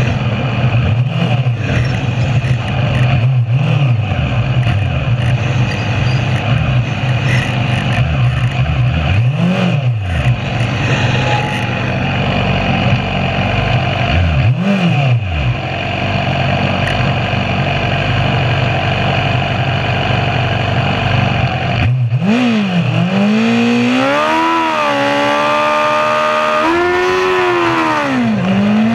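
Yamaha R6 600 cc inline-four engine idling with a few short throttle blips, other race bikes running around it. Near the end it revs hard as the bike pulls away, the pitch climbing and dropping back at each of three upshifts.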